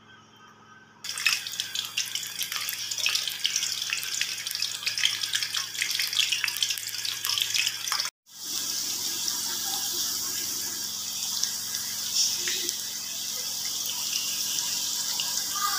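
Bitter gourd pieces frying in hot oil in a wok: a dense sizzle full of sharp crackles starts suddenly about a second in as the pieces go into the oil. After a brief break a little past halfway, it continues as a steadier, less crackly sizzle.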